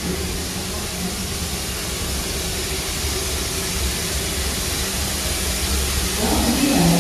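Steam locomotive, a 1908 Baldwin 4-4-0, giving off a steady hiss over a low rumble.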